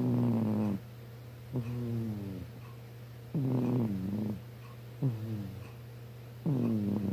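A domestic cat snoring: a regular series of about five snores, one every second and a half or so, each falling in pitch.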